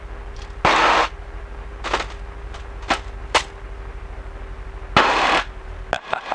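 Titan Tornado II ultralight touching down and rolling out on the runway with its engine throttled back to idle: a steady low engine hum, broken by several sharp knocks and a short rush of noise as the wheels strike and roll. Near the end the engine note drops away.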